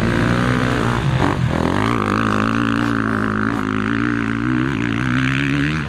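Motocross dirt bike engine held at steady revs, a low droning note that dips briefly in pitch about a second in and then holds.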